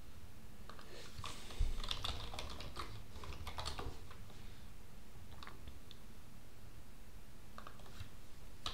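Typing on a computer keyboard in short bursts of key clicks, thinning out in the middle, with a low thump about a second and a half in.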